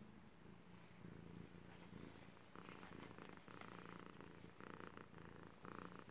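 Scottish Fold cat purring softly and steadily.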